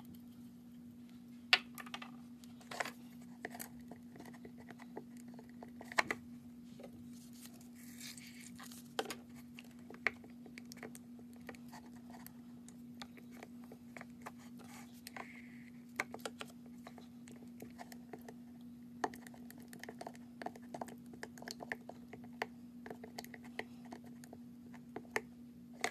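Wooden craft stick stirring and scraping thick slime mixture in a plastic bowl: faint, irregular clicks, scrapes and wet squelches over a steady low hum.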